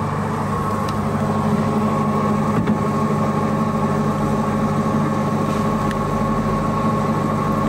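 Commercial electric meat grinder running steadily with a hum and a thin high tone. Already-minced meat is being fed through it again to grind it finer, to a sausage-like paste.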